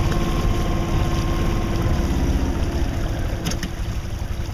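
Sailboat's auxiliary engine idling with a steady hum under wind rumble on the microphone. The hum sinks slightly and dies away about two and a half seconds in as the engine is shut down under sail.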